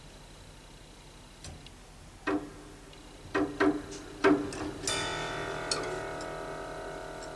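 Grand piano strings sounding as keys are struck: a few short notes that are cut off quickly, then, about five seconds in, a louder cluster of notes that keeps ringing and slowly fades. Faint clicks from the mechanism can be heard along with the notes.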